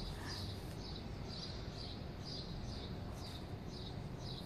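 Steady high chirping repeated about twice a second, over a low, even background rumble.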